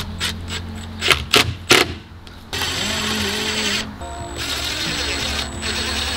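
Makita cordless impact driver driving screws through a metal flashing plate into timber: a few short sharp bursts in the first two seconds, then running steadily from about two and a half seconds in, with a brief pause near four seconds. Background music plays under it.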